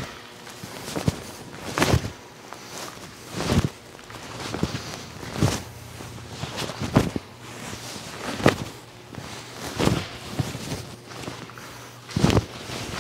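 Barefoot taekwondo form performed at a brisk pace on foam mats: sharp snaps of the dobok on strikes and blocks and thuds of bare feet stepping into stances, one about every one and a half to two seconds.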